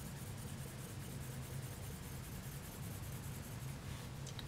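Quiet room tone with a low steady hum, and a couple of faint light ticks near the end.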